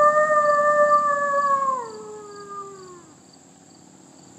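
A man howling like a wolf through cupped hands: one long howl held at a steady pitch, then sliding down in pitch about halfway through and trailing off.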